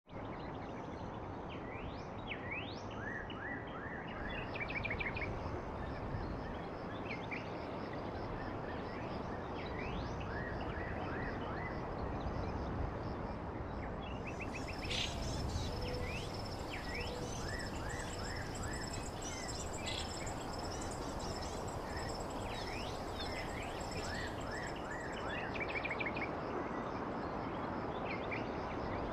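Outdoor ambience of many birds chirping over a steady background hiss, in short quick repeated calls. About halfway in a thin high steady tone joins and fades near the end.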